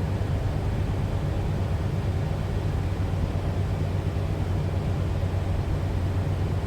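A 1979 van's engine idling steadily with an even low hum, warmed up to operating temperature with its thermostat open.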